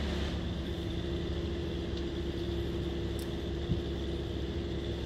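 Tree-service brush chipper's engine running steadily without wood going through, a constant drone with a low hum. A single short thud about three and a half seconds in.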